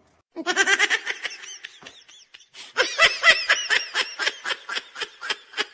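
A person laughing in two bouts: a burst starting about half a second in, then after a short pause a longer run of quick, regular laughs that tails off near the end.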